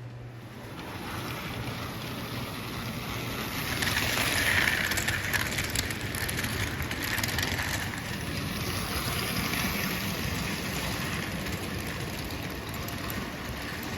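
Gilbert American Flyer toy train with die-cast chassis cars running on its track: a steady rolling rumble with clickety-clack wheel clicks. It grows louder about four seconds in as the train comes close, then slowly eases off.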